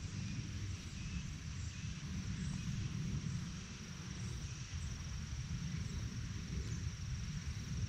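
Low, uneven rumble of wind buffeting the microphone, over an even hiss with a thin steady high-pitched tone.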